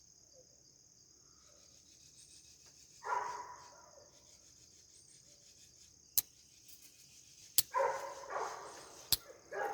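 Three sharp clicks in the second half, over a steady high-pitched drone, with a couple of brief low murmurs.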